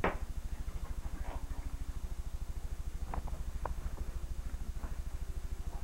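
Steady low hum with a fast, even pulsing, with a few faint taps and scrapes as a cardboard gift box is handled and pulled open.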